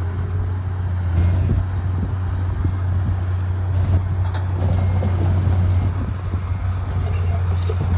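Diesel engine of heavy earthmoving machinery running steadily, a low continuous drone, with a few faint clanks over it.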